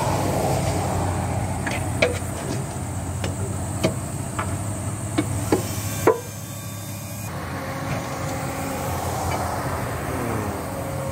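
Diesel engine of heavy logging machinery running steadily, with several short sharp clicks or knocks over it.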